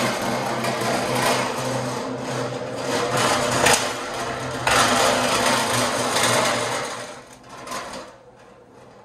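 Wheeled steel engine stand carrying a V8 crate engine being pushed across a concrete shop floor: casters rolling and the stand and its drip tray rattling steadily. The rattle drops away about seven seconds in.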